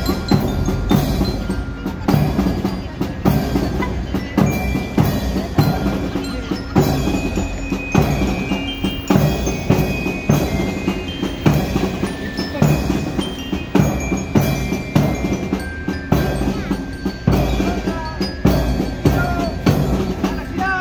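Marching band of snare drums and a bell lyre (marching glockenspiel) playing a march: a steady drum beat with a bright metal-bar melody over it.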